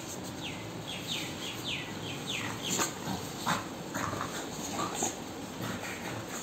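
American bully dog whining in play while rolling on her back: a quick run of about six high whines, each falling in pitch, then several louder short cries through the middle.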